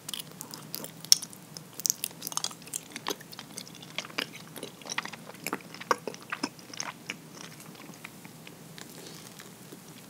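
Mouth sounds of biting and chewing soft, stretchy nama habutae mochi: a dense run of sharp mouth clicks for about seven seconds, thinning out and getting quieter near the end.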